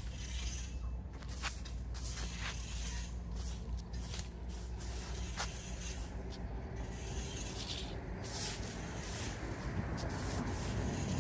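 Stiff plastic-bristle broom sweeping dry leaves and sand across concrete, a scraping rasp repeated in quick, irregular strokes.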